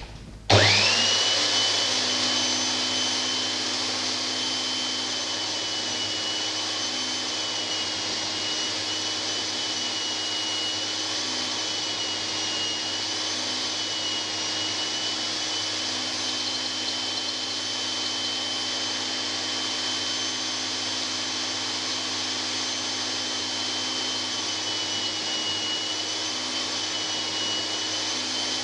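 Handheld belt sander mounted in a jig, switched on about half a second in and spinning up with a quick rising whine, then running steadily as the corners of small wooden handles are sanded on the belt.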